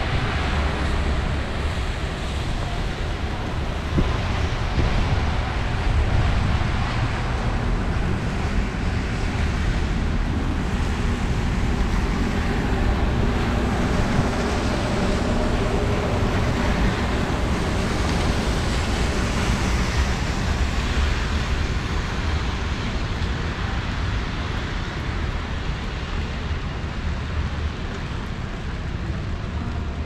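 Steady rainy street ambience: an even hiss of rain and tyres on the wet road, with a low rumble of wind on the microphone.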